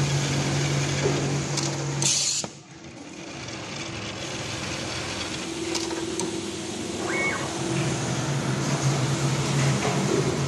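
Jack M5 automatic template sewing machine stitching, with a steady motor hum and needle run. About two seconds in there is a short burst of hiss and a brief dip before the stitching picks up again.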